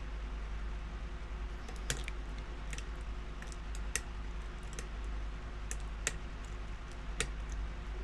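Small, irregularly spaced metallic clicks of a lock pick and tension wrench working inside a Master Lock as it is picked, over a steady low hum.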